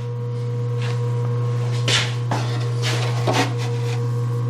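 Steady low hum of a running DoAll 14-inch surface grinder, broken by about five short clinks and scrapes of metal being handled.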